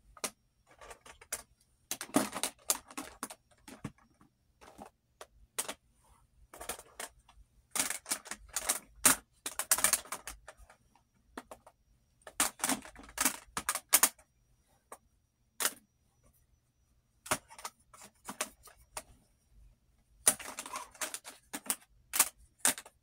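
Small plastic makeup palettes and compacts clicking and clattering against each other as they are handled and set down in a pile, in several rapid bursts of clicks with short pauses between.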